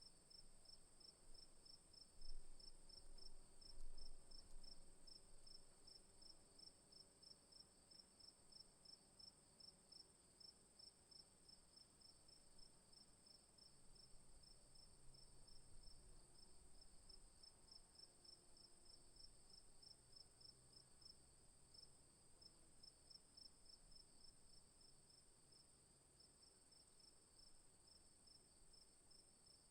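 Crickets chirping: a continuous high trill together with a rapid, regular chirping a little lower in pitch. Faint low rumble underneath, with two brief louder low sounds about two and four seconds in.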